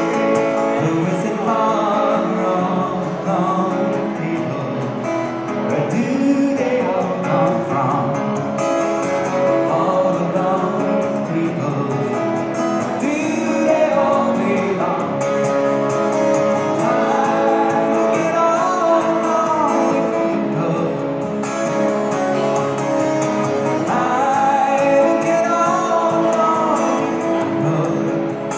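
A song: a singing voice over instrumental accompaniment, possibly with guitar.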